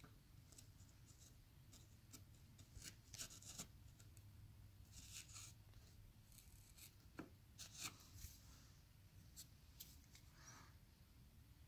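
Near silence with faint scattered scratching and rubbing strokes: wood filler being worked and smoothed along a shiplap board seam.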